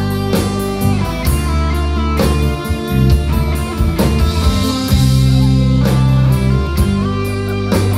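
Live rock band playing an instrumental passage: electric guitars and bass over a drum kit keeping a steady beat, with no vocals.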